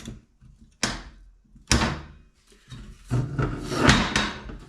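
Steel pieces clanking and scraping as they are set into a 90-degree corner welding jig and clamped: two sharp metal knocks, then a longer stretch of sliding and rattling near the end.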